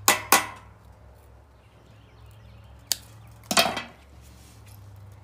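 Hand tools clinking on a metal work top as wire strippers are picked up and used on cord wires: two quick sharp clicks, a light tick, then a louder clatter about three and a half seconds in, over a low steady hum.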